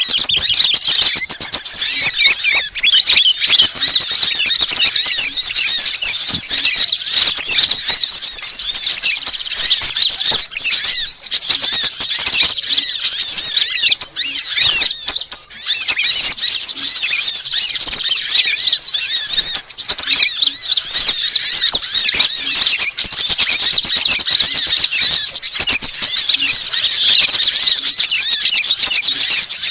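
A bird-lure recording of many small songbirds, such as sunbirds and bulbuls, chirping and twittering rapidly over one another in a loud, unbroken high-pitched chorus.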